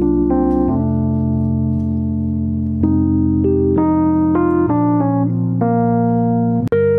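Background music: keyboard chords held and changing every second or so, with a very short dropout near the end.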